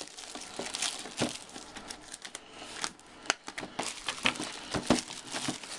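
Clear plastic shrink-wrap being peeled off a box by hand, crinkling with irregular sharp crackles.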